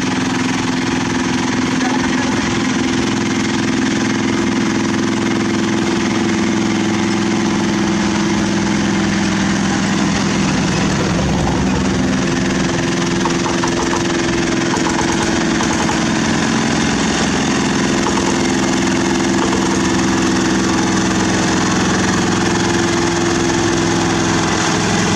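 Horizontal single-cylinder diesel engine of a walking (two-wheel) tractor running steadily, with only slight shifts in pitch.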